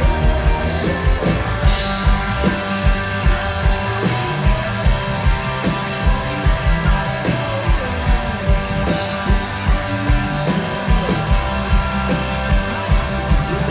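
A live rock band plays an instrumental passage without singing: drums keep a steady beat under bass and electric guitar.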